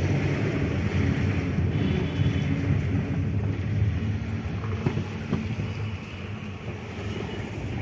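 Steady rumble of a moving car heard inside its cabin: engine and road noise, a little quieter after about six seconds.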